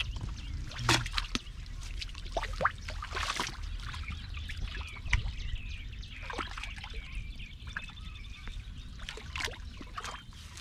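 Water splashing and trickling in irregular short bursts, over a steady low rumble.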